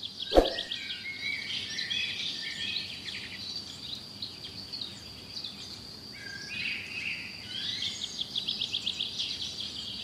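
Wild birds chirping and trilling, with a steady high-pitched tone underneath and one sharp knock about half a second in.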